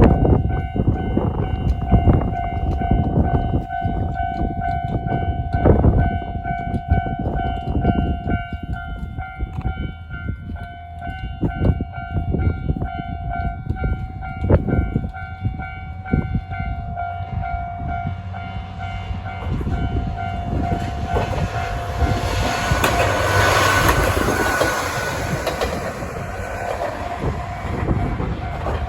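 Level-crossing warning bell ringing with a steady tone under heavy wind buffeting on the microphone. From about eighteen seconds in, a Tarumi Railway diesel railcar approaches and passes over the crossing, loudest about five seconds before the end.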